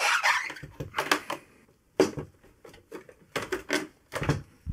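Plastic housing panels of a DeLonghi bean-to-cup coffee machine being unclipped and handled: a short scraping rustle, then a series of irregular clicks and knocks.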